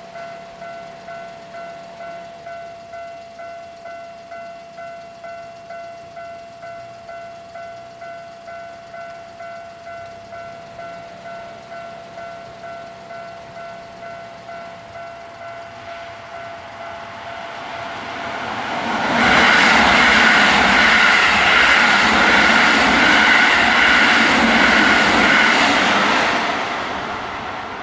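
Level-crossing warning bell ringing, about two strikes a second over a steady tone, then a Keisei 3700-series electric train comes up and passes. The train is loud for about seven seconds and fades off near the end.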